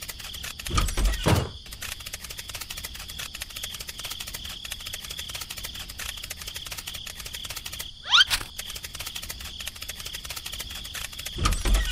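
Added sound effects: two low thumps about a second in, a quick rising whistle around eight seconds, and another thump near the end, over a steady fast ticking with a high hiss.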